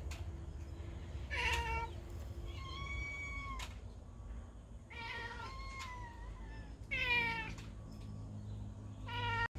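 A street cat meowing about five times, with separate calls, some falling in pitch and one held longer: a cat begging for food.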